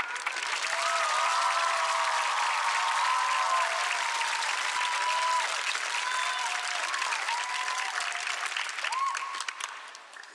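Studio audience applauding, a dense wash of clapping that dies away near the end.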